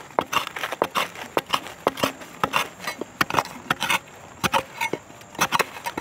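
Long-handled iron digging blade jabbing repeatedly into hard, dry soil among tree roots: an irregular run of sharp chops and scrapes, several a second, with a brief lull around five seconds in.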